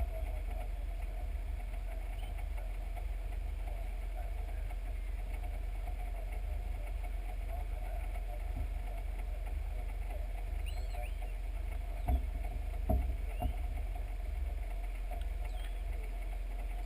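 Ex-London Underground tube train on the Island Line running along the track, heard from a microphone mounted outside the train: a steady low rumble of wind on the microphone over a constant running hum, with a few thumps about twelve to thirteen and a half seconds in.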